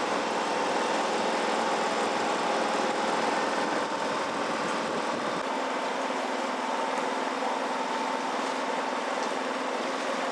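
Steady running noise aboard a sailboat under way, a rushing haze with a steady hum through it. The deepest part of the noise drops away about five seconds in.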